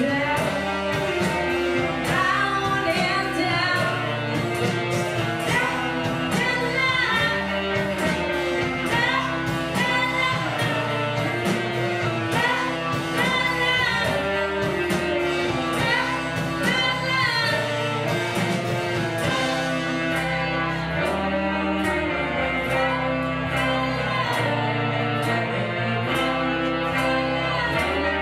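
Live indie rock band playing: electric guitars, bass and drums with a singer over them. The singing stops about two-thirds of the way through, leaving the band playing on.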